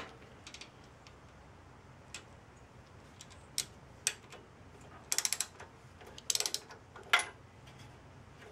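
Ratchet socket wrench clicking in quick runs as it loosens a spark plug, among scattered light metal clicks of the socket and wrench.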